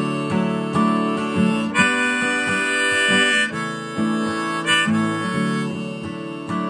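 Harmonica played from a neck holder over a strummed acoustic guitar, an instrumental break between verses. The guitar strums steadily at two to three strokes a second while the harmonica holds one long bright note near the middle.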